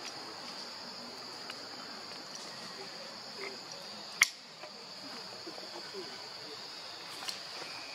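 Steady high-pitched insect drone of forest ambience, with one sharp click about halfway through.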